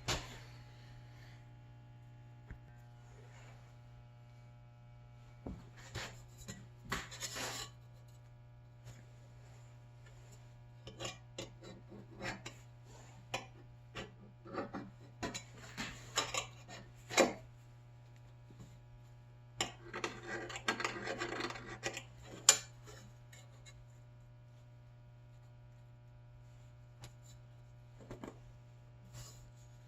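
Small hard parts of a fridge ice-bucket auger drive being handled: scattered clicks and short spells of rubbing and scraping, the longest a few seconds past the middle, over a steady low hum.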